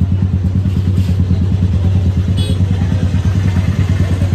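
A motorcycle engine idling steadily, with a brief high metallic clink about two and a half seconds in.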